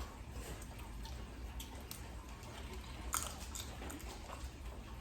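Someone eating boiled crawfish: quiet chewing and mouth sounds with scattered small clicks, the sharpest about three seconds in, over a low steady hum.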